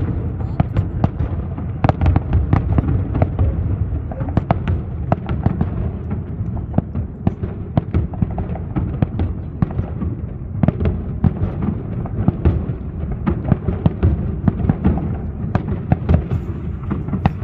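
Festival fireworks display, many shells bursting in quick, overlapping succession with a continuous rumble and crackle of reports.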